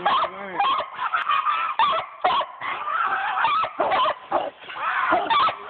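Coonhounds barking treed, a dense run of loud, repeated barks: the hounds' signal that they have a raccoon up the tree.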